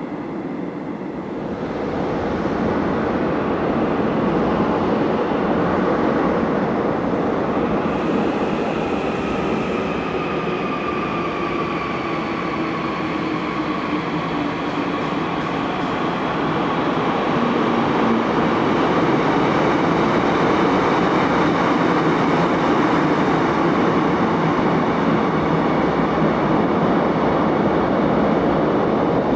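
Seoul Line 9 subway train running through the underground station: a steady rumble of wheels on rail, with a high whine that slowly falls in pitch. It swells about two seconds in and stays loud.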